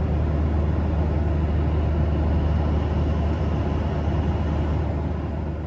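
Steady jet airliner cabin noise: a low engine drone under rushing air, starting to fade near the end.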